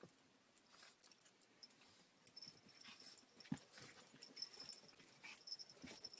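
Faint sounds of small dogs playing: scattered soft taps and a knock about halfway through, with a faint high squeak that comes and goes.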